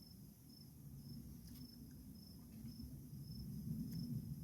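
Faint insect chirping, a high-pitched chirp repeating evenly about three times a second, over a low steady background rumble.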